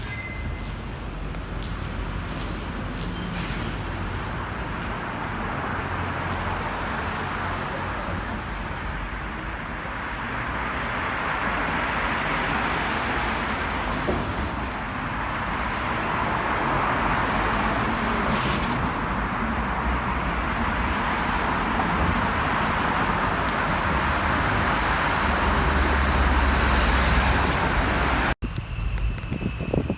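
Steady rushing noise of passing vehicles, slowly growing louder, broken by an abrupt cut near the end.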